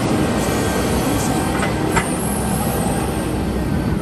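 Diesel engine of a Wolf WE75L 8-ton wheeled excavator running steadily as the upper body swings round, with a few light clicks, the sharpest about two seconds in.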